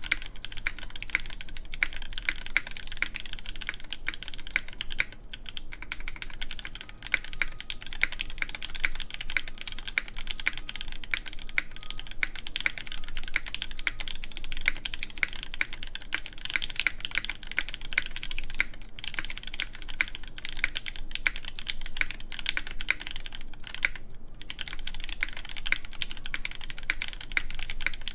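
Continuous fast typing on a top-mounted Parabolica60 mechanical keyboard with lubed Gateron Red Ink linear switches, an aluminum plate and GMK keycaps: a dense run of keystroke clacks, with short breaks about five seconds in and near the end.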